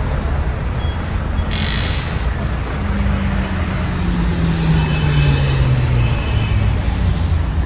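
City street traffic: steady road rumble, with a short hiss about two seconds in and a passing vehicle whose engine hum falls in pitch over a few seconds.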